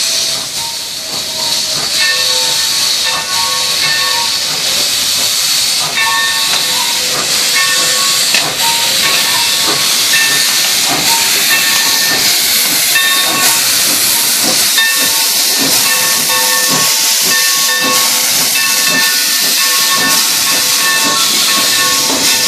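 Steam locomotive rolling slowly past at close range, steam hissing loudly from around its cylinders the whole time. Short ringing tones come and go every couple of seconds over the hiss.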